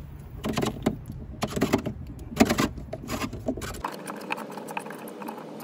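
Hard-shell saddlebag on a Harley-Davidson touring motorcycle being unlatched and worked loose from its mounts by hand: a run of sharp plastic and metal clicks and knocks, then lighter ticking and rattling near the end.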